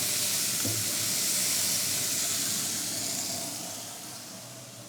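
Ground beef on tortillas sizzling face down on upside-down grill grates of a hot pellet grill, a steady hiss that dies down over the last second or so.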